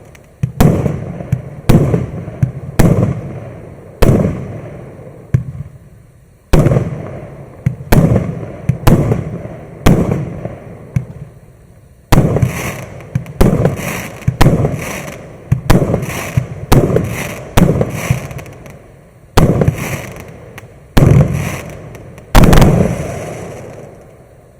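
A 60-shot consumer fireworks cake with 20 and 30 mm tubes firing in quick succession: a long string of sharp bangs, one to two a second, in volleys with short gaps. The last shots go off about 23 seconds in and then the sound dies away.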